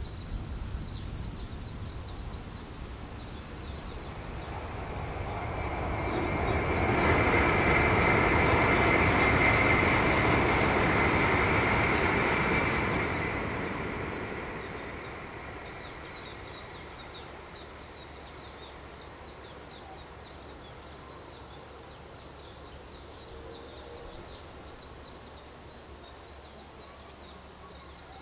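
A Tokaido Shinkansen high-speed train passes over the viaduct: a rushing noise swells, holds for about six seconds with a steady high whine on top, then fades away. Birds chirp throughout.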